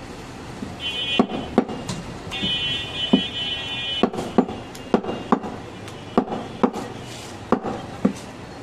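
A heavy curved butcher's knife hacking at a goat leg on a wooden chopping block: a string of sharp knocks, about two a second. A high buzzing tone sounds twice in the first three seconds.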